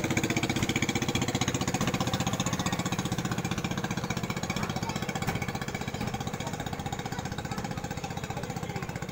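Small motor of a wooden timber boat putting past at speed, a fast, even pulsing beat that fades slightly as the boat pulls away about halfway through.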